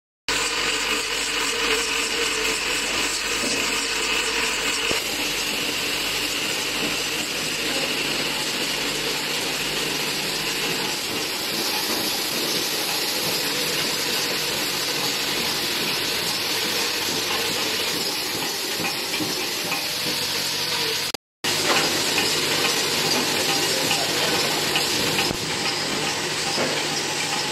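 A JMJP-300 chocolate foil-wrapping machine running: a steady, dense mechanical rattle and hiss from its vibratory bowl feeder, feed conveyor and wrapping head. It breaks off for an instant about three quarters of the way through.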